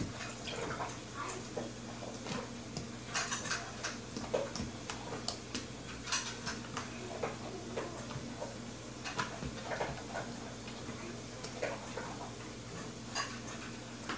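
Hands kneading sticky fluffy slime, working activator into it: irregular small squelching clicks and crackles over a steady low hum.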